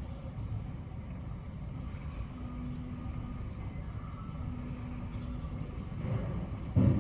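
Steady low rumble, with a faint low hum twice for about a second each and a dull thump near the end.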